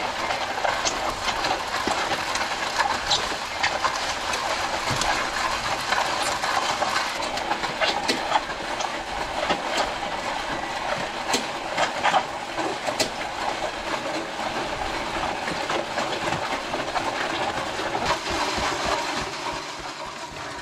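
Mud Mixer auger concrete mixer churning gravelly wet concrete while concrete is raked into a stair form: a steady gritty rattling hiss with many small clicks of stones. It eases off near the end.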